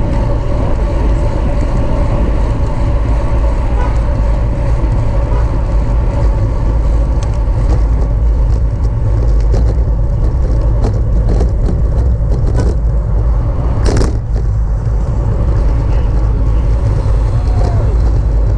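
Heavy, steady wind rumble on the microphone of a camera riding along in a bicycle race, mixed with road and bike noise. A few light ticks come near the middle, and one sharp click about 14 seconds in.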